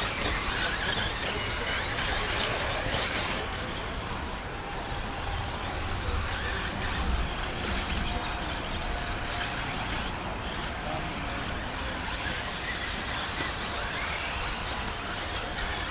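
Several 1/8-scale electric off-road RC buggies racing on a dirt track, their brushless motors whining and rising and falling in pitch as they speed up and slow down.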